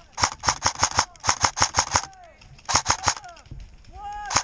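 Airsoft gun firing rapid full-auto bursts: three short strings of sharp snaps at about six shots a second, and a fourth burst starting near the end.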